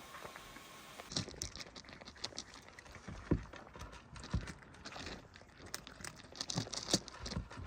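Crinkling, rustling handling noises with irregular sharp clicks and a few dull thumps, starting about a second in.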